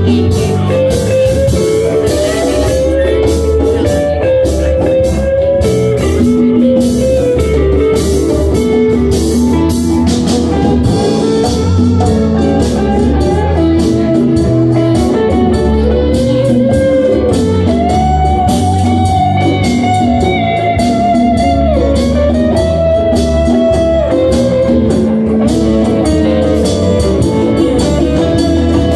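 Live band playing: electric guitars, bass guitar and drum kit.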